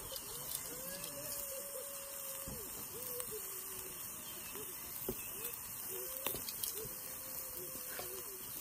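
Beef steaks sizzling on a hot cast-iron grill plate over charcoal, a steady hiss with a few sharp pops. Behind it, a faint wavering tone comes and goes, held for a second or so at times.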